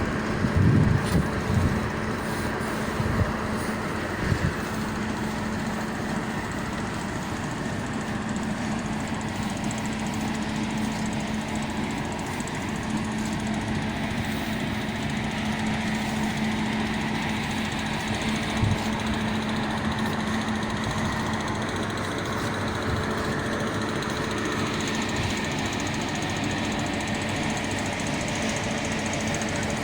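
A machine running steadily: a constant low hum under a broad, even hiss, with a few louder knocks in the first few seconds.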